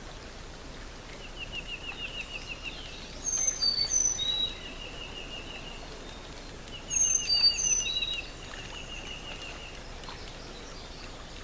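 Wild birds singing: a rapid trill of quick repeated notes comes and goes several times. Twice, about three seconds in and again about seven seconds in, it is joined by a louder phrase of short high whistles, each stepping down in pitch.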